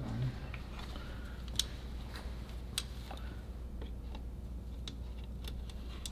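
Sparse, light clicks and taps of gloved hands and a small hand tool refitting hoses and connectors at the back of a car engine's intake plenum, over a steady low hum.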